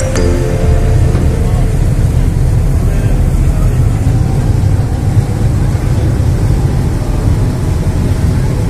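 Steady low rumble of a Thames Clipper river catamaran under way, with its engines and churning wake heard from the open rear deck.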